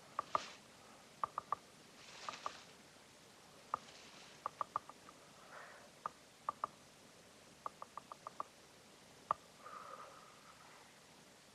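Runs of quick, sharp, pitched taps, from single knocks to bursts of five or six at about seven a second, with soft rustles between them and a short held tone near the end.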